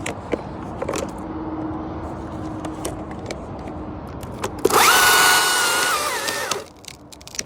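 Chainsaw idling, then opened up to full throttle for about two seconds as it cuts through the branch, its pitch sagging near the end before the throttle is released.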